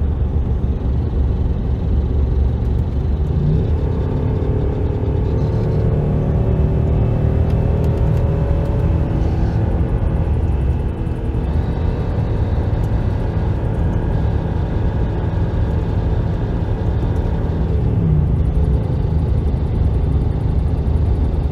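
Land Rover LR3's 4.4-litre V8 engine running, its speed rising gently about four seconds in and easing back down about ten seconds in, then rising a little again near the end. It carries the ticking that the owner is trying to diagnose, unsure whether it is an exhaust leak or valve-train noise.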